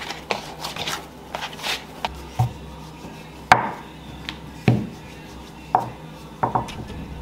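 A dozen or so sharp, irregularly spaced knocks and clacks from working kodo (millet) dough: hands kneading in a plastic bowl, then a rolling pin knocking on a stone worktop as a momo wrapper is rolled out.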